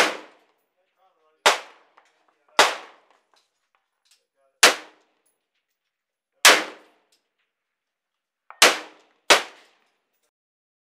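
Seven rifle shots from a 7.62/.308 semi-automatic AR-10-type rifle (Live Free Armory PR20) fitted with a muzzle brake, fired at a long-range steel target. Each is a sharp crack with a short fading tail. They come at uneven intervals, the last two less than a second apart.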